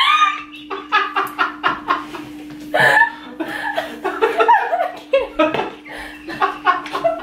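Laughter and giggling in quick repeated bursts, mixed with indistinct chatter. A steady low hum runs underneath.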